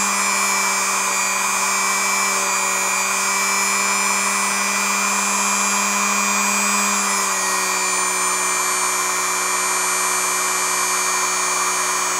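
Atlas sewing machine's small electric brushed motor, out of the machine, running steadily at speed on a variable transformer during a run-in, its brushes and rotor just cleared of crud. A steady electric whir that eases slightly lower in pitch about seven seconds in.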